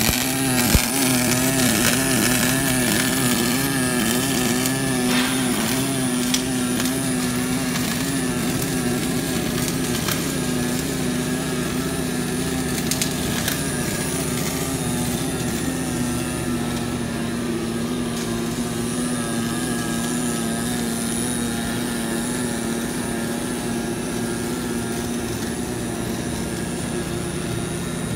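Automatic seam welding machine's arc running continuously as the torch travels along a steel sheet butt seam: a steady hiss over a wavering hum, with a few brief clicks near the start.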